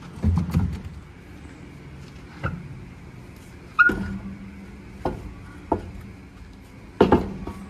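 Heavy truck wheels being worked off the axle hub by hand: a deep thud, then a series of hard metallic knocks and clanks spaced irregularly, the loudest near the middle with a short ring and another near the end.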